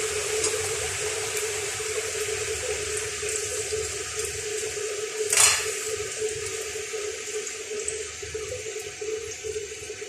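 Kitchen tap running steadily into the sink, with a brief louder splash or knock about halfway through.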